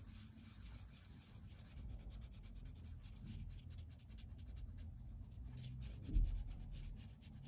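Blue felt-tip marker scratching quickly back and forth on paper as a small shape is coloured in, faint. There is one soft low thump about six seconds in.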